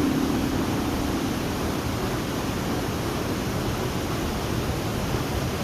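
Waterfall: the steady, even rush of falling water. A low held tone fades out about a second in.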